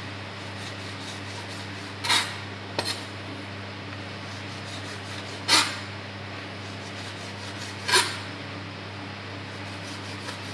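A kitchen knife slicing chorizo and knocking down onto a plastic chopping board: four short, sharp cuts a couple of seconds apart, over a steady low hum.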